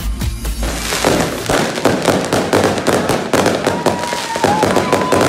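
Consumer fireworks going off: rapid crackling and banging, many reports overlapping. Electronic dance music with a heavy bass beat plays for about the first second, then cuts off. A thin steady whistle joins in near the end.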